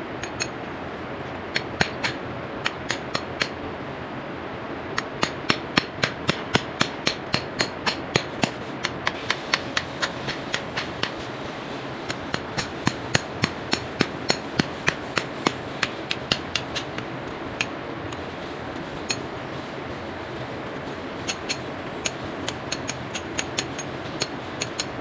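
Hammer striking a chisel in runs of quick blows, about two to three a second with short pauses between, each with a metallic ring, chipping out around old water pipes.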